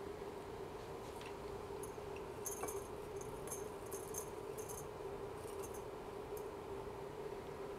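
Dry green tea leaves pushed with a bamboo tea stick off a ceramic tea scoop into a heated clay roasting pot: faint, crisp scattered clicks and rustles in short clusters from about two seconds in, over a steady hum.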